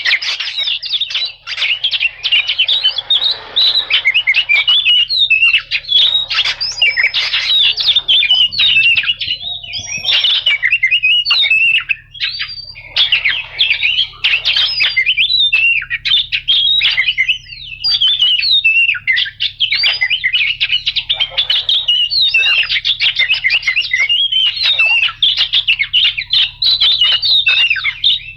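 Oriental magpie-robin (kacer) singing a fast, nearly unbroken string of chirps, whistles and harsh rattling notes, with short breaks about twelve and seventeen seconds in.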